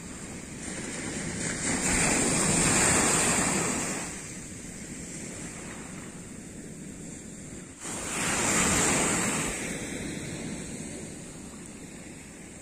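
Small waves breaking and washing up a sandy beach: a steady rush of surf, with two waves swelling and fading, one about two seconds in and one about eight seconds in.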